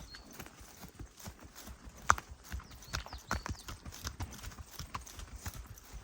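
Irregular steps knocking and crunching along a forest track, with a few short high chirps now and then.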